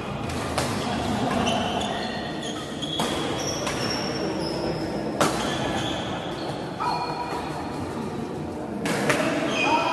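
Badminton rally: about four sharp cracks of rackets striking the shuttlecock, a couple of seconds apart. Between the hits, short high squeaks of shoes on the court floor.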